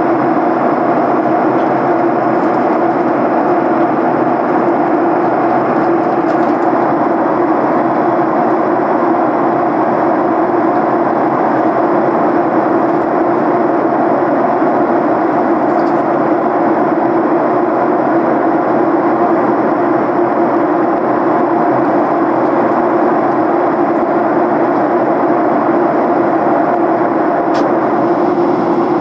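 Steady in-cabin noise of a Boeing 737 airliner in flight on descent: jet engine and airflow noise with a constant low hum, unchanging throughout, with a few faint ticks.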